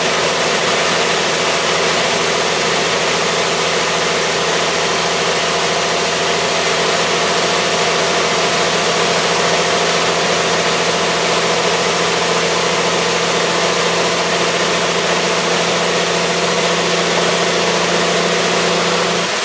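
Rollback truck's Cummins diesel engine and road noise heard from inside the cab while cruising steadily at about 55 mph and 1,500 rpm. It is a steady, even drone.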